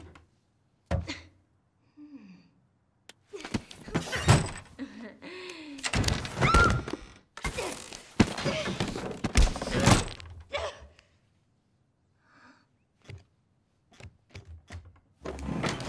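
A run of thunks, knocks and scuffles as a limp body is shoved and tumbles against a wooden wardrobe, with the wardrobe door banging, and short strained vocal noises between them. It goes mostly quiet after about ten seconds.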